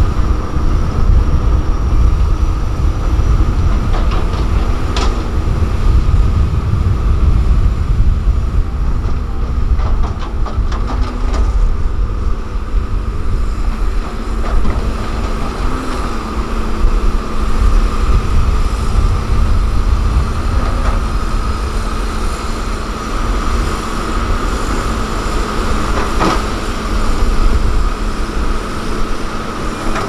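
Diesel engines of heavy road-construction machinery, a motor grader with a dump truck and an excavator close by, running steadily in a low rumble, with a few sharp knocks from the working machines.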